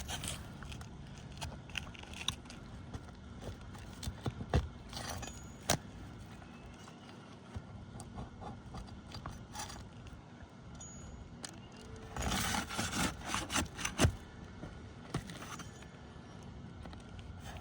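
A tool scraping and clicking against roof shingles as the nails under them are worked loose, with scattered taps and a louder, busier stretch of scraping about twelve seconds in.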